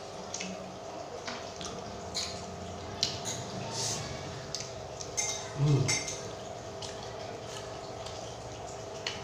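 Close-up wet chewing and lip-smacking while eating fried tofu dipped in sambal, with scattered short mouth clicks. A brief low throat sound comes a little past halfway.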